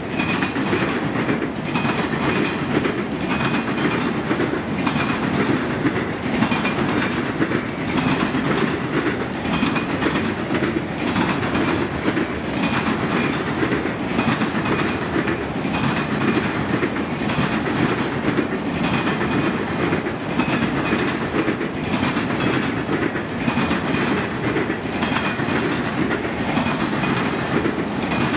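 Freight train of autorack cars rolling past: a steady rumble of wheels with a rhythmic clickety-clack over the rail joints, and a faint high squeal coming and going.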